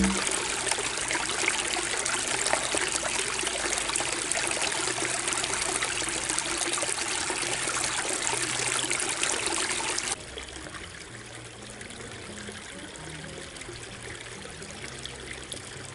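Running water, a steady splashing noise that drops suddenly to a lower level about ten seconds in.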